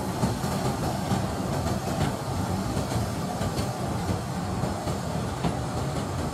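Diesel-electric locomotive hauling a ballast hopper wagon at low speed during shunting: a steady engine rumble with occasional clicks of the wheels over the rails.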